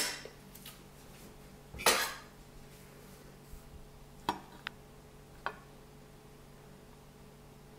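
Kitchen dishes and cutlery clinking and knocking: about five separate sharp clicks, the loudest about two seconds in, over a faint steady hum.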